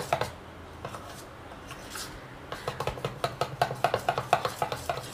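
Steel spoon clicking and scraping against the sides of a steel bowl as milk powder is beaten into milk, in quick strokes of several a second. The strokes ease off for a second or two near the start and pick up again about halfway.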